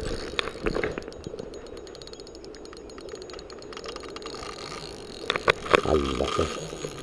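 Shimano Exage spinning reel being cranked to wind in line: a fast, even ticking from the reel's gearing for a few seconds. Near the end come a few sharp clicks and a soft thump as the line and bail are handled at the reel.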